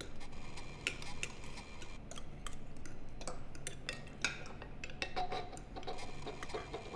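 Cutlery clinking against china dinner plates in light, irregular taps and clicks, over a low steady hum.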